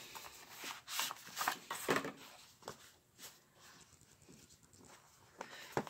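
Hands handling a small cardboard-and-plastic pen box: several short rustles and clicks in the first half, then quieter, with one sharp click near the end.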